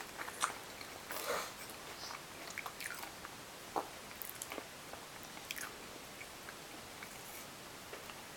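A baby biting and chewing on an apple: irregular small crunches and mouth clicks, thinning out toward the end.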